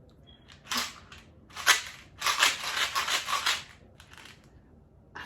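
A few short bursts of dry rattling noise, with a longer run of quick rattles lasting about a second and a half in the middle.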